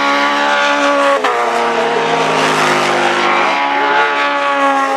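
Racing car engines running hard at high revs on the circuit, several steady engine notes at once, with a sudden break in the sound about a second in.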